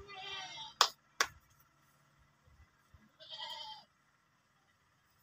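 Goats bleating, two calls of under a second each, one at the start and one about three seconds in. About a second in come two sharp knocks in quick succession, louder than the bleats.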